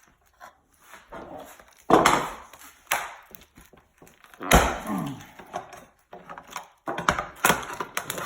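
Parts of a carbon fiber rib mold being pried and snapped loose under heavy pressure: a series of sharp knocks and cracks. The loudest comes about four and a half seconds in and is followed by a short falling tone.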